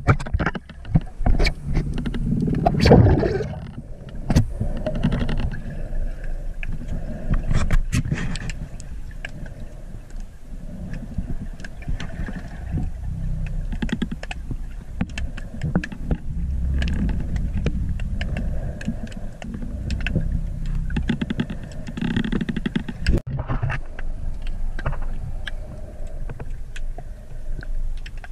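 Underwater sound picked up by a diver's camera in its housing: a steady low rumble of moving water with scattered sharp clicks and crackles. There is a louder rush of noise about three seconds in and again a little past twenty seconds.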